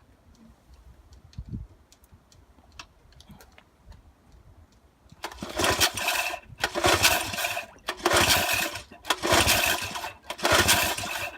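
1964 Wards Sea King 3 hp two-stroke outboard being pull-started: after a few quiet seconds of light clicks and a thump, the engine is cranked over on its starter cord again and again, five or so pulls of about a second each, without settling into a steady run. It still needs choking to start.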